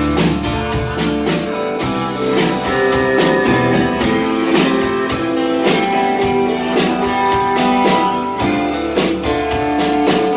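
A live indie rock band playing, with acoustic and electric guitars over drums keeping a steady beat.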